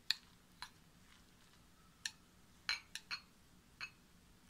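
A metal fork clinking against a glass bowl while grated vegetables are mixed: about seven short clinks at irregular intervals, the loudest right at the start.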